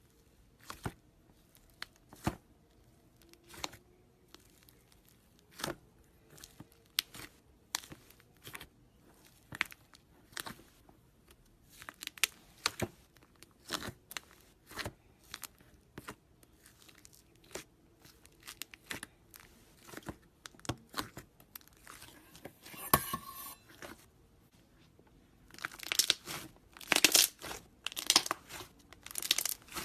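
Slime being pressed, stretched and mixed by hand, giving sharp sticky clicks and pops about once a second, with a dense run of crackling near the end.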